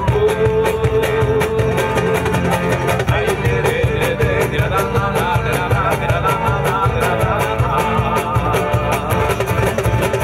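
Live band music: an acoustic guitar played over a fast, steady hand-percussion beat, with a melody line holding a long note in the first few seconds.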